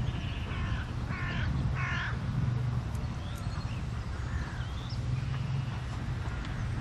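A crow cawing three times in quick succession in the first two seconds, with a few fainter bird chirps later, over a steady low rumble.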